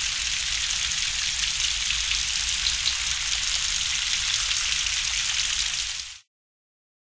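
A steady crackling hiss, like static, from the intro's sound effect. It cuts off abruptly about six seconds in.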